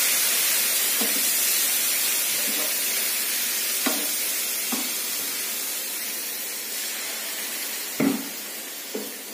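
Freshly added water sizzling and hissing in a hot non-stick pan of fried grated carrot, dying down gradually as it boils off. A wooden spatula stirs and knocks against the pan about six times, the loudest knock near the end.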